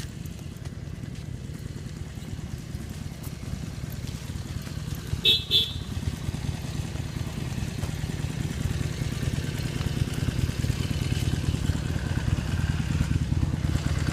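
Outdoor air conditioner condenser units running on a hot day: a steady low compressor and fan hum that grows louder over the second half. Two quick high beeps sound about five seconds in.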